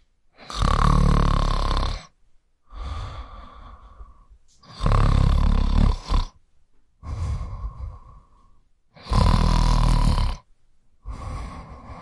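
A man snoring in a steady rhythm: three loud, rattling snores about four seconds apart, each followed by a quieter breath.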